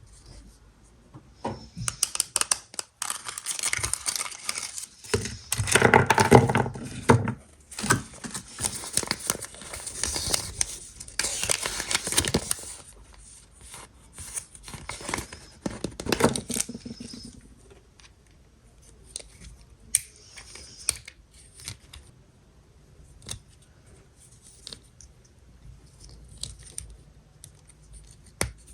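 Kinder egg wrapper being torn and crinkled open by hand, in bursts over the first half, followed by sparse small clicks and taps of handling.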